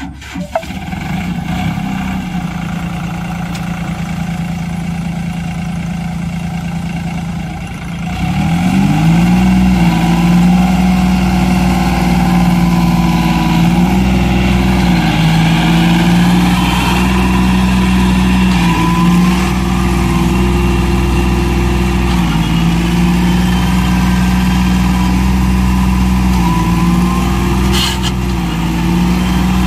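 Sonalika DI 745 III tractor's diesel engine running steadily, then revved up about eight seconds in and held at high revs with a few brief dips, as the tractor strains stuck in mud without pulling free.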